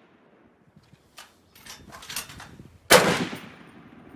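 A single shot from a Rock River Arms .308 semi-automatic tactical rifle about three seconds in, its report ringing on and fading over about a second. A few fainter sharp clicks come a second or so before it.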